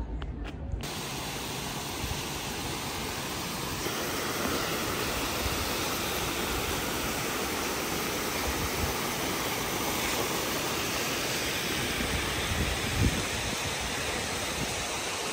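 Waterfall cascading down a rocky cliff: a steady, even rush of falling water, a little louder from about four seconds in.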